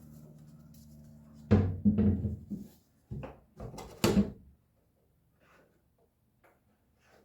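A handful of hard knocks and clunks, five in about three seconds, from the deck locker's hatch cover and its G-10 latches being handled, over a low steady hum.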